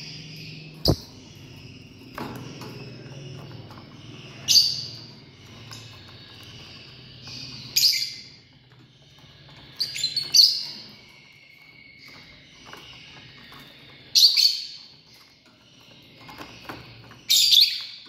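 Lovebird calling with five loud, short chirps about three seconds apart over softer continuous twittering. A single sharp knock about a second in.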